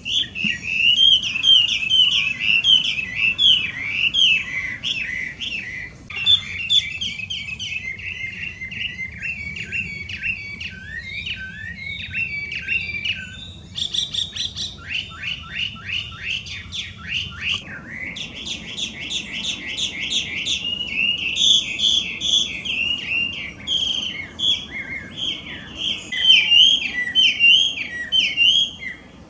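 Hwamei (Chinese laughingthrush, Garrulax canorus) singing a loud, continuous song of varied whistled phrases that slide up and down. About halfway through it breaks into a quick run of repeated downward notes.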